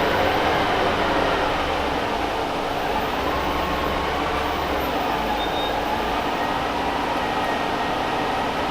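Orion VII CNG transit bus running, its Detroit Diesel Series 50G engine and Allison B400R transmission giving a steady drone with whining tones that shift a little in pitch.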